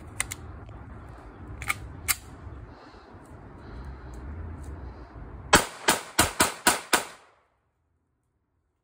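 FN Five-seveN pistol firing six quick shots of 5.7×28mm, about four a second, each a sharp crack with a short ring after it. A few fainter sharp clicks come earlier.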